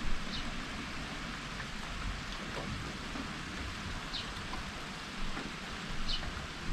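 Steady rain falling, with a few short high ticks of drops and some low thuds, the loudest just at the start.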